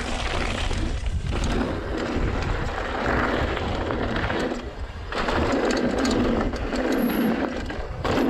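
Wind rumbling on a GoPro Hero 7's microphones, damped by a Wind Slayer foam cover with the microphone in auto mode, mixed with the riding noise of a mountain bike going downhill. A steady low rumble runs throughout, with the noisier upper sound swelling and dipping.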